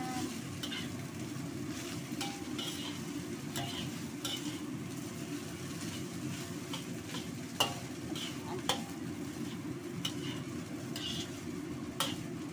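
Fried rice stir-fried in a wok: a metal spatula scrapes, tosses and knocks against the wok over a steady low rush of frying. Sharp ringing clinks come every second or so, the loudest about halfway through and near the end.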